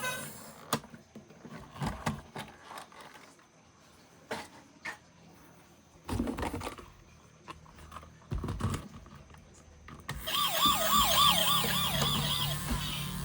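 Plastic toy vehicles and packaging being handled, with scattered clicks and rubbing. About ten seconds in, a toy emergency vehicle's electronic siren starts, a fast warbling wail that rises and falls several times a second.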